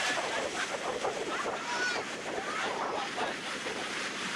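Ocean surf washing onto a sandy beach, a steady rush of breaking waves, with indistinct voices of people talking underneath.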